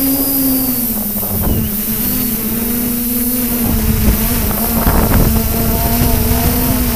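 Multirotor drone's electric motors and propellers humming steadily as it lifts off and climbs, with a slight dip in pitch about a second in. Wind rumbles on the microphone.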